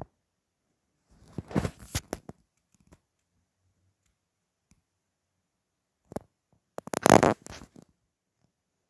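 Two short bursts of rubbing, blowing noise right on a phone's microphone held against a face, each about a second long: one about a second in and one about seven seconds in, with a small click just before the second.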